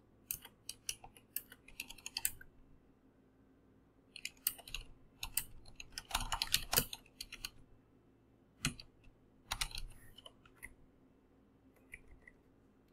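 Typing on a computer keyboard: two runs of rapid keystrokes, then a few scattered single key presses with pauses between them.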